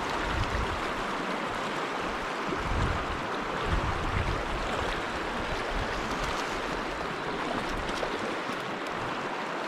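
Stream water rushing in high runoff flow, a steady hiss, with occasional low rumbles on the microphone.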